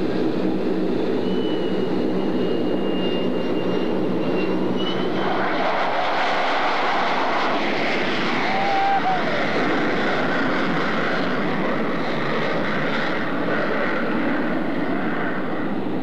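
F-4 Phantom jet engines running steadily on a low approach pass, with a thin high whine for the first few seconds. The sound swells into a louder, brighter rush as the jet passes close, about six to nine seconds in, then eases off.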